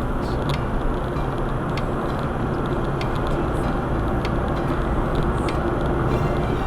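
Steady road and engine noise heard from inside a moving car, with a few faint scattered ticks.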